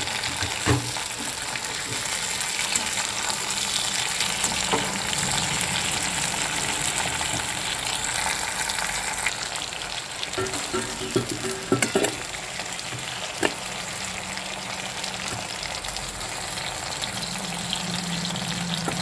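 Flat beans and nigella seeds sizzling steadily in hot oil in a karahi as they are stirred and lifted out, with a cluster of sharp metal clicks from the spatula against the pan about eleven to twelve seconds in and another shortly after.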